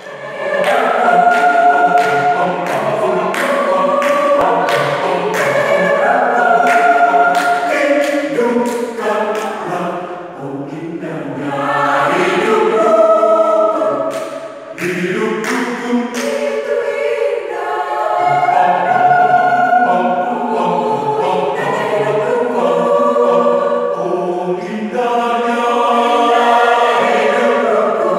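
Mixed choir of men and women singing together in harmony, in phrases of held chords with short breaks between them.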